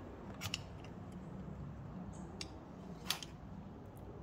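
A few sharp metal clicks and clinks as a bolt and small hardware are handled and fitted into a steel parking brake assembly, over a steady low hum.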